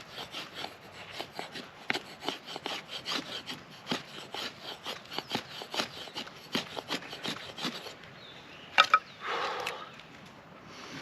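Folding knife blade shaving a wooden stick in quick repeated strokes, about three a second, as when carving feather sticks. The strokes stop after about eight seconds, then there are two sharp clicks and a short scrape.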